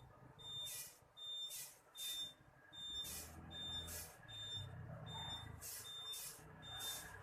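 Reversing beeps from a 1/4-scale RC truck's sound unit, one short high beep about every three quarters of a second, each followed by a short hiss. From about three seconds in, a low truck-engine rumble joins the beeps.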